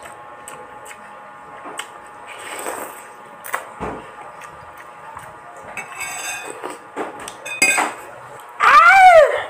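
A metal spoon and fork scraping and clinking against a ceramic bowl in several sharp clinks, with slurping of noodles. Near the end comes a loud, brief pitched sound that rises and then falls.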